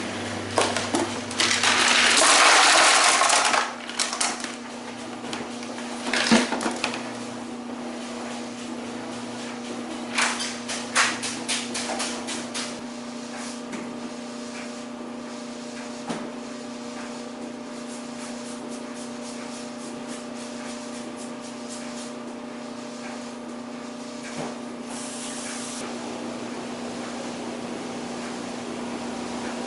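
Steady hum of a small electric motor, the rig's water pump or box fan. A loud rush like water being poured comes about one to four seconds in, and there are scattered clinks and clatters like ice in an ice chest.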